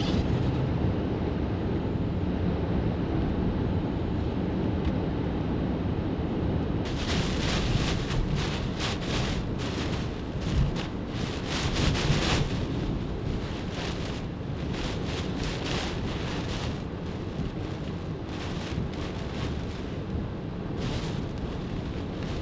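Category 4 Hurricane Ian's wind near the northern eyewall, a steady heavy low rumble. From about seven seconds in, gusts of wind and rain hit in quick bursts of hiss.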